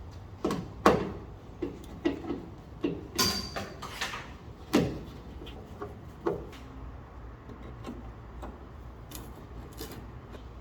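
Scattered knocks and clicks of tools and metal parts being handled, about a dozen over the first seven seconds, then only a faint low steady hum.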